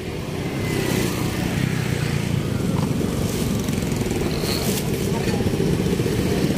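A small engine running steadily at idle, low-pitched with a fast, even pulse.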